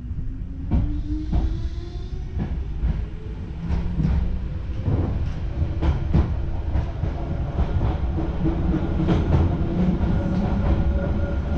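Nose Electric Railway 3100 series electric train heard from inside a passenger car as it pulls away: the motor whine rises in pitch over the first few seconds and then holds, while the clack of wheels over rail joints comes more and more often.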